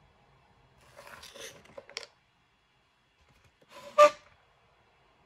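Small parts and tools being handled on a cutting mat: a second of soft rustling and scraping, then one sharp clack about four seconds in with a brief ringing note.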